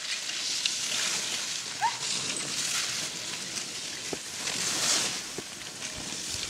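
Skis sliding and scraping over packed snow, a continuous gritty hiss with small clicks, and a short rising squeak about two seconds in.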